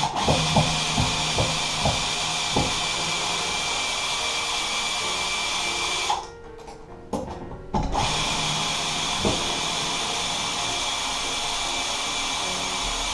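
Handheld power drill running in two long steady runs of about six seconds each, with a short pause between, boring holes for new blind mounting brackets.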